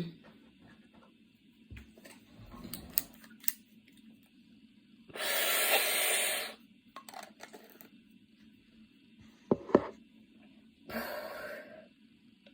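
A woman's coughing fit easing off: a long, noisy breath of about a second and a half, two short sharp coughs close together, then another noisy breath of about a second near the end, with quiet in between.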